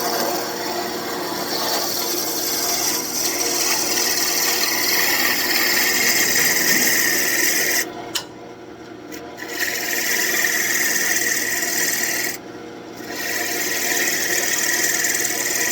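A turning tool cuts spinning birch wood on a wood lathe, making a steady shaving hiss over the lathe motor's hum: light finishing cuts. The tool comes off the wood twice, about halfway through and again a few seconds later, leaving only the motor hum briefly.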